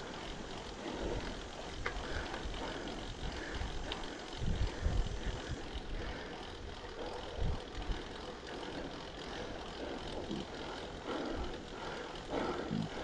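Gravel bike on the move: steady road and wind noise with irregular low thuds.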